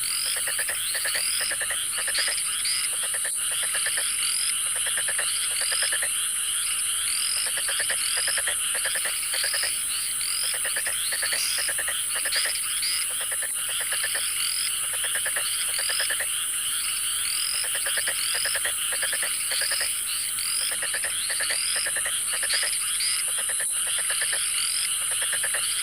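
Chorus of frogs calling over and over in quick pulsed trills, with a steady high-pitched insect drone underneath.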